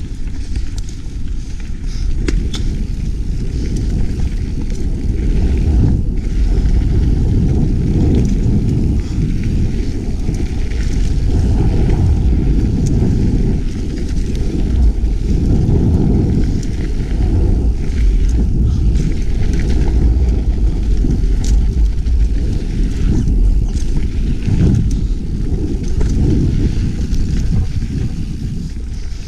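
Mountain bike riding singletrack: wind rushing over the camera microphone and tyres rolling on dirt, with scattered clicks and rattles from the bike.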